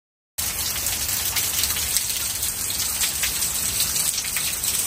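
Steady rain with many separate drop hits close by, starting abruptly about half a second in.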